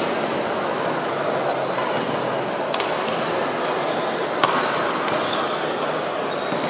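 Badminton play in a large, echoing sports hall: sharp cracks of rackets striking shuttlecocks, three of them, the loudest about two-thirds of the way through, and short squeaks of shoes on the wooden court floor, over a steady din of many courts and people.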